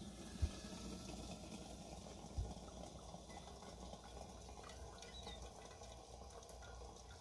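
Hot water poured from a stainless stovetop kettle onto coffee grounds in a paper-filtered pour-over dripper: a faint, steady trickle. Two low thumps stand out, about half a second and two and a half seconds in.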